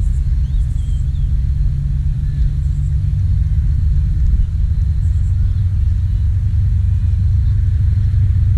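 Low, steady rumble of wind buffeting the microphone of a camera set on an open field, with a few faint distant shouts above it.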